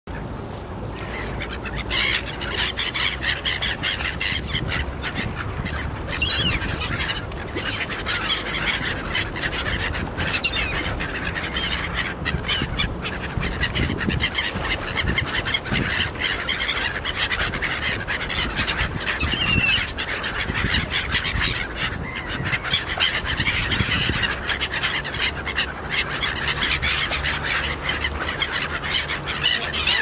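A flock of black-headed gulls calling constantly, many harsh cries overlapping, with sharp flutters and clicks among them. A steady low rumble runs underneath.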